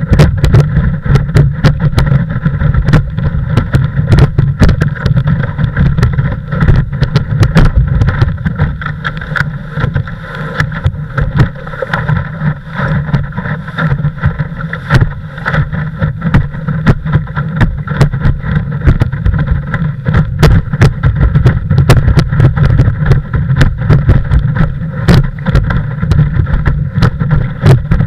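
Windsurf longboard planing at speed: water rushes and slaps against the hull under a heavy, steady rumble of wind on the nose-mounted action camera, with many sharp knocks as the board hits chop and spray strikes the camera.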